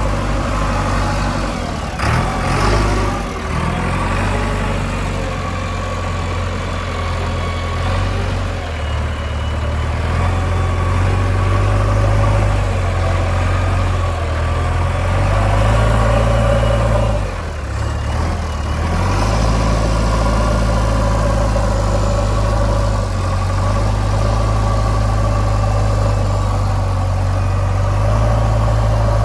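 Diesel engine of a JCB backhoe loader running steadily, its pitch stepping up and down as the load changes, with a brief dip about two-thirds of the way through.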